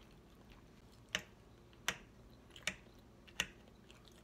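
A person chewing chicken and mushrooms with the mouth close to the microphone. Four sharp, wet mouth clicks come at an even chewing pace, about three-quarters of a second apart.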